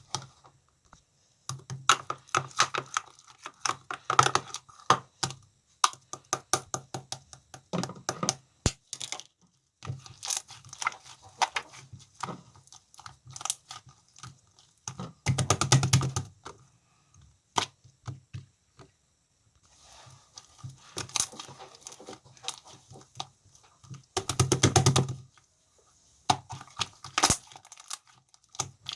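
Slime being pressed, stretched and poked by hand, giving rapid irregular clicks and little pops. There are two louder, denser runs of them, one about halfway through and one near the end.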